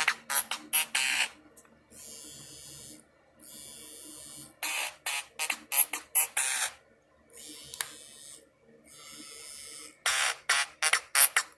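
Old mobile phone alarm ringing: a repeating pattern of quick runs of short, sharp chirping beeps alternating with longer hissy tones, cycling about every five seconds.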